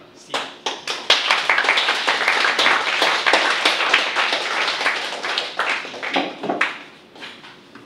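A small audience applauding. A few separate claps come first, then dense clapping for several seconds, which tapers off near the end.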